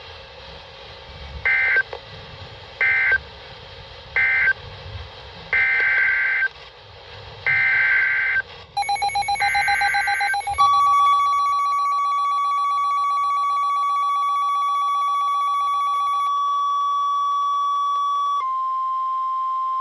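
NOAA Weather Radio alert signalling heard through a weather radio receiver: three short warbling SAME data bursts end the previous warning, then three longer SAME header bursts announce the next one. About halfway through, a rapid electronic beeping starts, and then the steady 1050 Hz warning alarm tone sounds to the end.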